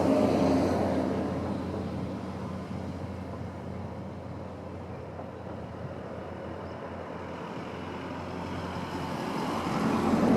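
Road vehicle passing the level crossing, its noise fading away over the first few seconds over a steady low hum. Another vehicle approaches and grows louder near the end.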